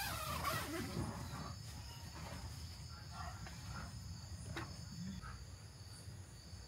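Steady, high-pitched chorus of insects, with one faint knock about four and a half seconds in.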